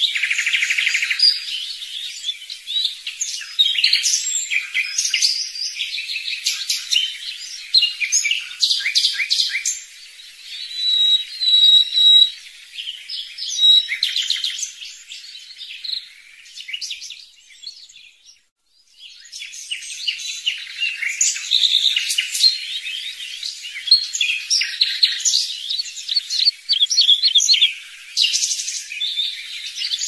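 Several songbirds singing together, a busy mix of quick chirps, twitters and trills that drops out briefly a little past the middle before resuming.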